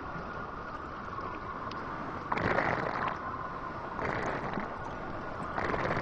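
Muffled underwater water ambience: a steady low rushing hiss, with three louder surges of rushing noise about a second and a half apart from a couple of seconds in.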